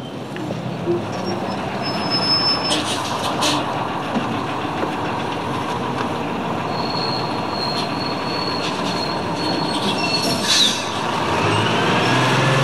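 City bus at a stop, its engine running steadily, with high-pitched brake squeals and a few short hisses. Near the end a tone rises and falls, as when the bus pulls away.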